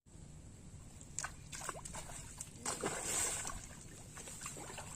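Pond water splashing and sloshing in a few short irregular strokes, the longest and loudest about three seconds in, over a steady low outdoor rumble.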